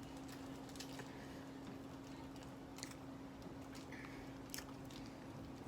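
A person chewing a soft chocolate cupcake, with scattered small wet mouth clicks. A faint steady hum runs underneath.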